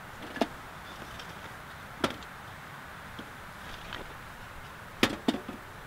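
Split wooden kindling sticks knocking and clattering as they are set into the firebox of a small metal wood stove: a few sharp clacks, the last two close together near the end.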